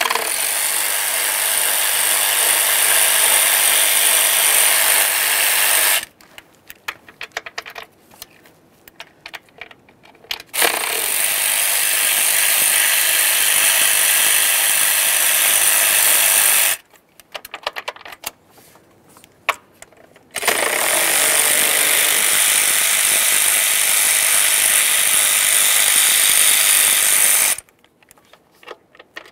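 Power tool with a socket on an extension spinning out the intake manifold's 8 mm mounting bolts: three steady runs of six to seven seconds each, with light clicks and taps of the socket and bolts between runs.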